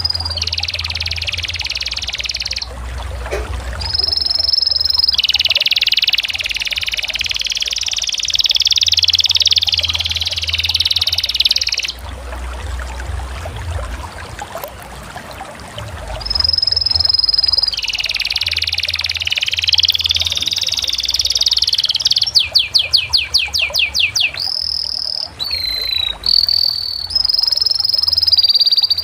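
Canary singing: long rolling trills and high held whistled notes, pausing briefly about halfway, with a run of rapid separate notes, about ten a second, about three quarters through.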